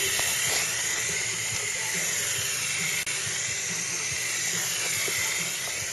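Handheld paint sprayer spraying paint in a steady hiss, with a momentary break about three seconds in.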